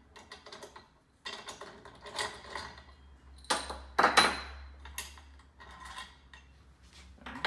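Hex key working the rear axle bolt out of a metal pro scooter deck: small metal clicks and clinks, with a louder ringing metal clank about halfway through.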